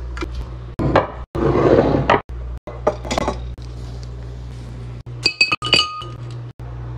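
Glass storage canisters being filled, with items dropped in clinking against the glass; a cluster of bright ringing glass clinks comes about five seconds in.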